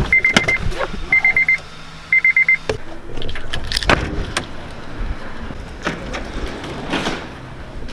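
A car's warning chime beeping in three quick groups of rapid high pips, about a second apart, over a steady low hum. The hum cuts off with a thud about two and a half seconds in, followed by scattered knocks and clicks.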